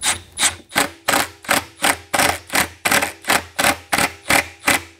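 A ratcheting hex (Allen) driver clicking in a steady back-and-forth rhythm, about three strokes a second, as a threaded foot spike is tightened into the bottom of a wooden subwoofer cabinet. The strokes stop abruptly near the end.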